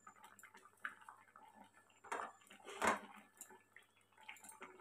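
Milky vegetable curry simmering in a kadai, its bubbles popping as soft, irregular ticks, with two louder pops or knocks about two and three seconds in.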